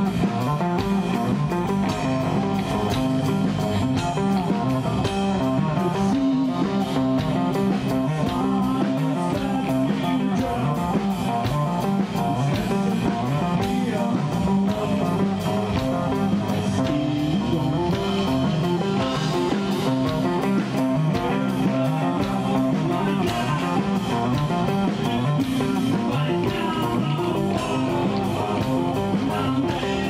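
Live rock band playing: distorted electric guitar and bass guitar over a steady drum beat with cymbals.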